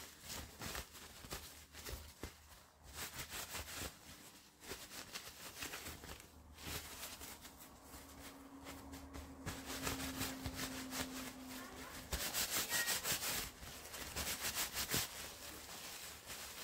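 Disposable diapers and their plastic pack crinkling and rustling as they are handled, in quick crackly bursts that are loudest about twelve seconds in.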